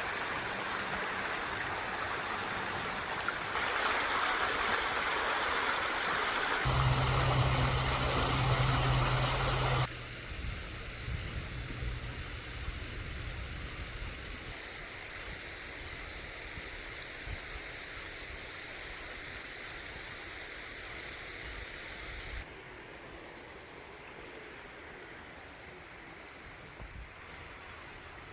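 A burn's water rushing and splashing over stones. It comes in several sections that change abruptly, loudest in the first ten seconds, with a low rumble for a few seconds in the middle, and quieter after that.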